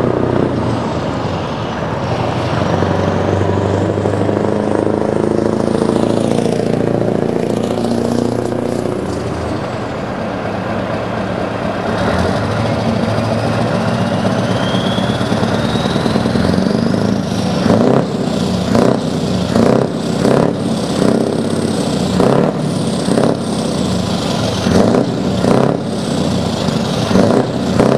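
Scania R620 truck's V8 diesel engine running as the truck drives up, with a rising whine about halfway through. In the last third the engine is revved in a quick series of short blips.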